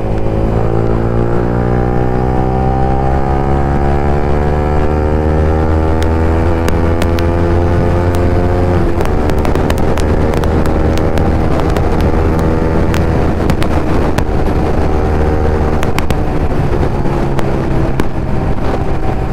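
Motorcycle engine under way, its pitch climbing steadily as it accelerates, dropping at a gear change about nine seconds in and then climbing again, with wind noise over the microphone.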